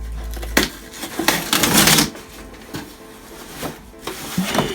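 Packaging being handled and unpacked: rustling and crinkling with scattered clicks and knocks, loudest about a second in.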